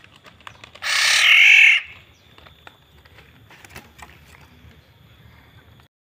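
Black-naped oriole giving one harsh, nasal, crow-like call about a second in, lasting about a second. Faint light clicks follow.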